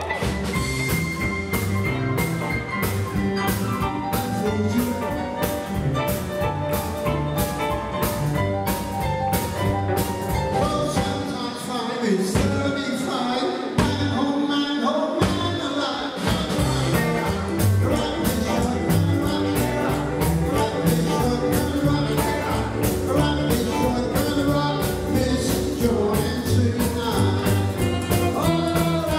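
Live rockabilly band playing with a male lead vocal: upright bass, hollow-body electric guitars, tenor saxophone and drums on a steady beat. The bass and drums drop out for a few seconds near the middle, then come back in.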